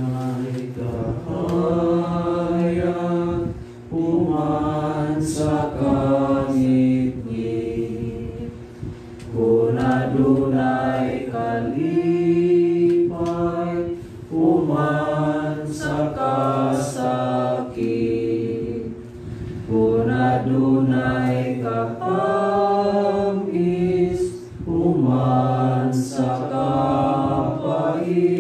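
A choir singing a slow, chant-like hymn in several voice parts, in long held phrases with short breaths between them.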